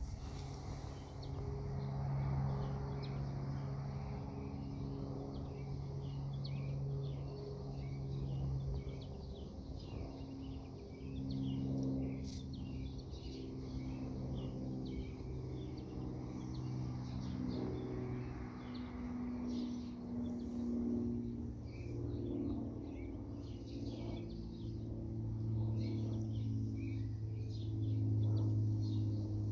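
Small birds chirping intermittently over a low droning hum that shifts in pitch every second or two and grows louder near the end.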